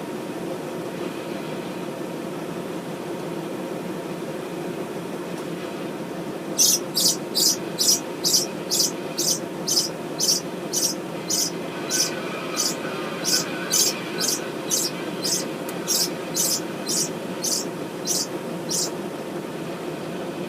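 A bird giving a long run of short, high-pitched chirps, about two a second, starting several seconds in and stopping near the end, over a steady low hum.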